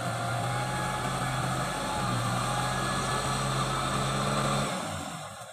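Kubota M6040SU tractor's diesel engine running at a steady speed, fading out near the end.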